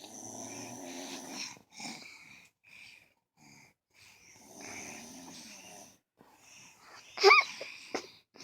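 A person snoring, with long rasping breaths about four seconds apart and a short one between them. Just after seven seconds comes a brief, loud, high-pitched rising sound.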